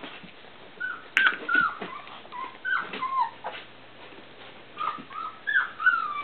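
Three-week-old rough collie puppies whimpering, a string of short high squeaky calls that bend in pitch, with a sharp click about a second in.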